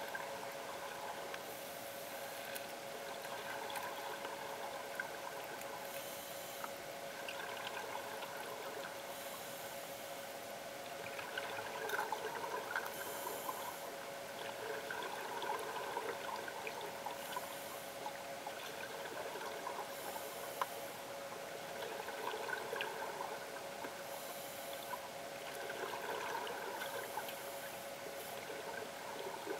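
Underwater sound of a scuba diver breathing from a regulator: a hiss on each inhalation and a gurgle of exhaled bubbles, repeating every few seconds in a regular cycle, over a steady hum.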